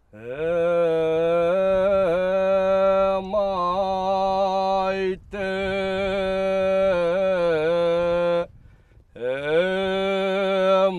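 Men's voices singing a slow unaccompanied song in unison, long held notes with ornamented wavering turns, breaking off briefly about halfway and pausing again near the end before the next phrase.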